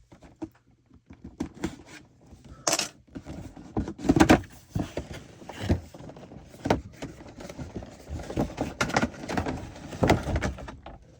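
A toy's retail box being handled and opened: irregular knocks, clicks and rustles of cardboard and plastic packaging, loudest about four seconds in.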